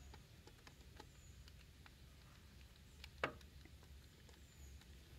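Near silence with a low steady hum, scattered faint clicks and one sharper click a little after three seconds in: small parts being handled as a carburetor is fitted to the intake.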